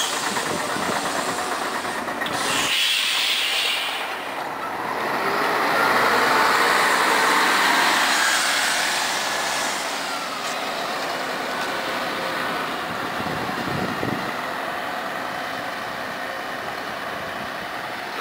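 Scania CN113ALB city bus pulling away from a stop: a hiss of air about three seconds in, then its diesel engine accelerating, loudest around six to eight seconds in and fading as the bus drives off.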